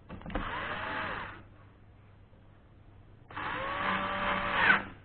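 Small cordless electric screwdriver running on the controller's terminal-block screws in two short bursts of about a second each, its motor whine rising and falling in pitch with each run.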